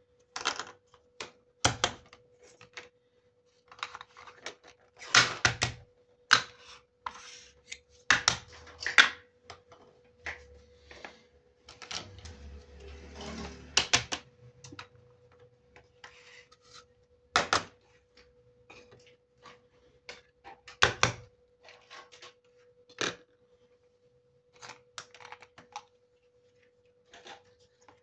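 Small hard-plastic miniature toy kitchen pieces being handled and set down on a table: an irregular series of sharp clacks and taps, with a stretch of rustling about halfway through. A faint steady hum runs underneath.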